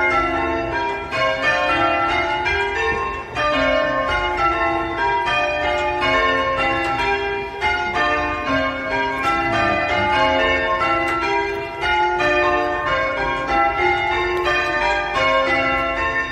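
Church tower bells being rung in changes: an unbroken, even succession of bell strikes at different pitches, each ringing on under the next.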